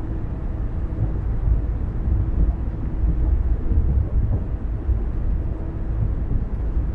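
Car driving along a road: a steady low rumble of tyre and engine noise.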